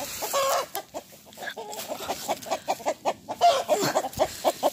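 Chickens clucking in quick, short repeated calls, several a second, mixed with the crunch of footsteps hurrying through dry leaf litter.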